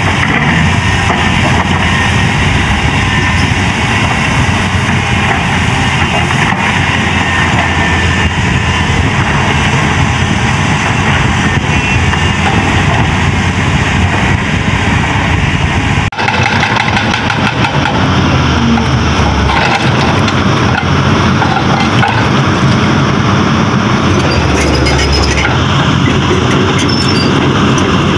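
Caterpillar hydraulic excavator's diesel engine running steadily under working load. The sound cuts abruptly to a similar, rattlier machine sound about sixteen seconds in.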